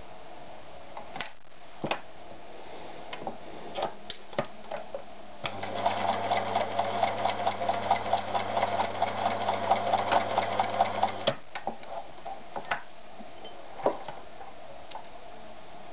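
Privileg TopStar 796 Super Automatic sewing machine running for about six seconds, stitching rapidly over a steady motor hum. Scattered clicks and knocks come before and after the run.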